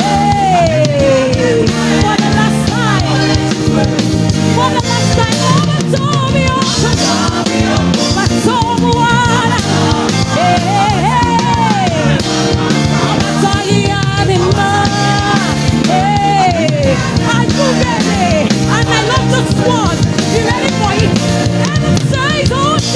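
Live gospel praise band playing a steady upbeat groove on drum kit and bass, with a melodic lead line that slides and bends in pitch over it.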